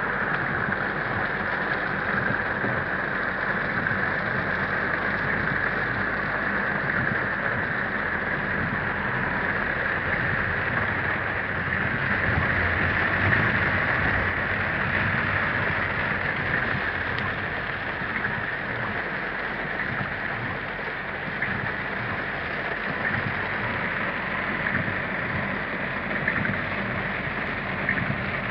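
Heavy rain falling steadily on a car's roof and windscreen, heard from inside the moving car, with the car's low rumble underneath.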